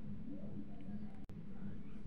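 Quiet steady low background hum (room tone), with one short click a little over a second in.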